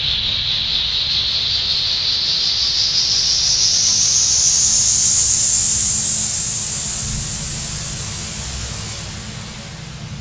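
Synthesized suspense riser: a hissing noise sweep that climbs steadily in pitch for about nine seconds over a low rumbling drone, then falls away near the end.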